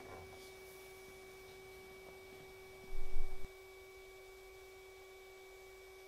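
Faint steady hum with a held tone and a light hiss from a spray-finishing rig running as lacquer is sprayed. A brief loud low rumble comes about three seconds in.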